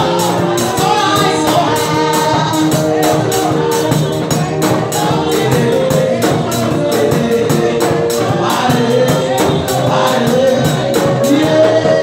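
Live gospel praise music: a woman's voice singing into a microphone over a fast, steady percussion beat.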